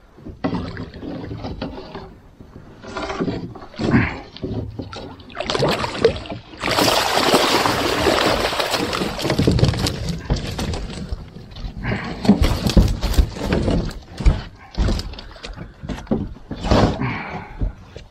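A river hoop net with a catfish in it being hauled out of the water into an aluminum jon boat. Water splashes and pours off the mesh for a few seconds, then the net's hoops and the fish knock and thump against the boat's hull.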